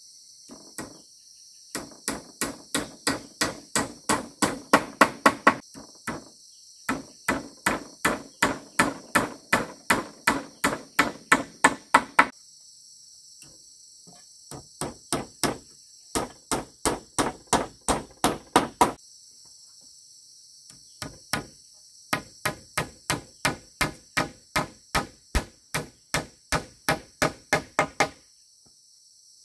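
Hammer strikes in four quick runs of evenly spaced blows, about three or four a second, with short pauses between, over steady cricket chirring.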